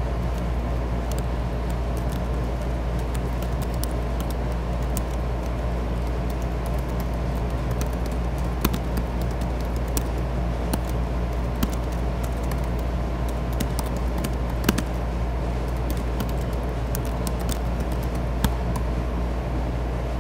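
Computer keyboard keystrokes, scattered clicks with a few louder ones, over a steady low hum.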